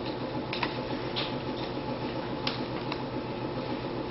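Steady low room hum with a few light, sharp clicks and taps from model-rocket parts being handled.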